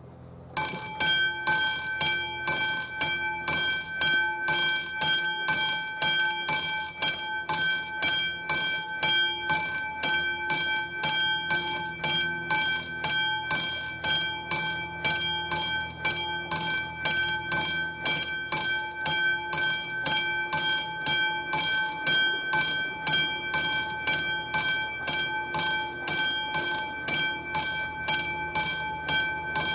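Classic level-crossing warning bell starting about half a second in and ringing on in rapid, evenly spaced metallic strokes. It signals that the crossing has activated for an approaching train.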